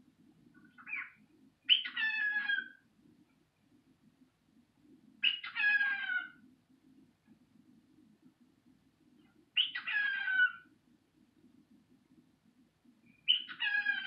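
Cockatiel vocalizing: a short chirp about a second in, then four repeated calls about a second long, each ending with a falling pitch, roughly four seconds apart.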